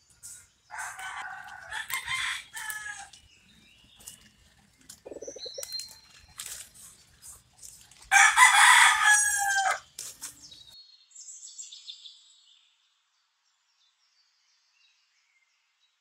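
A rooster crows twice, about a second in and again about eight seconds in, the second crow the louder, with small birds chirping in between. The sound cuts out completely after about twelve seconds.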